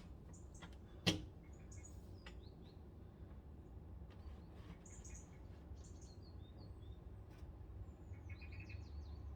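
Small birds chirping repeatedly in the background, with one sharp click about a second in over a low steady hum.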